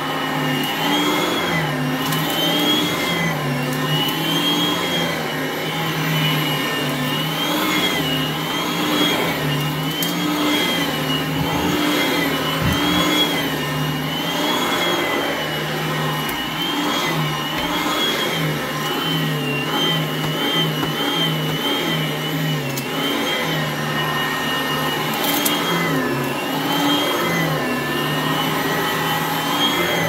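Vacuum cleaner running on carpet. Its motor whine rises and falls in pitch about once a second as it is pushed back and forth in strokes.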